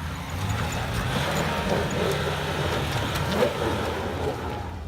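Off-road vehicle's engine running hard under load, its low drone overlaid by a broad rushing noise that swells about a second in and eases near the end.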